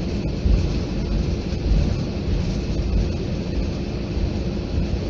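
Jet airliner's engines running, heard from inside the passenger cabin as a steady rushing hiss over a low rumble with a faint steady hum.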